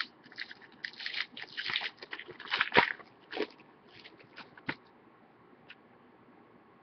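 Plastic crinkling and rustling as a trading card and its pack wrapper or sleeve are handled, a dense run of crackles that thins out after about three and a half seconds into a few light clicks.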